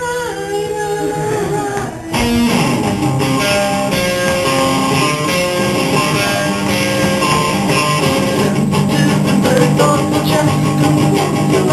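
Guitar-led rock song: a held sung note trails off, then about two seconds in a louder instrumental passage kicks in and carries on.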